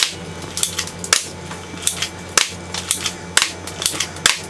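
Spring-powered plastic Colt 1911-style airsoft pistol being cocked and fired repeatedly, giving about ten sharp plastic clicks and snaps at an uneven pace.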